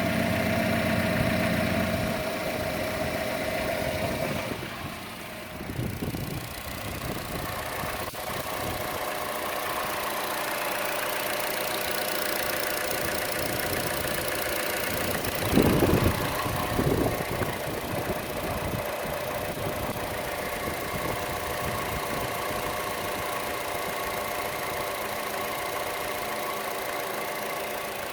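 Chevrolet Cruze engine idling with a ticking louder than the normal engine tick, most noticeable on the belt side of the engine. The sound changes as the microphone moves around the engine bay. About halfway through there are two brief louder noises.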